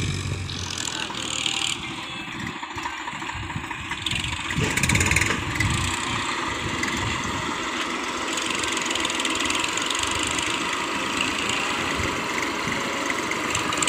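Tractor diesel engine running, with a louder stretch about five seconds in.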